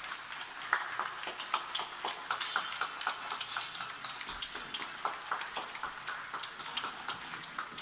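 Rain falling, with many irregular drops ticking close by.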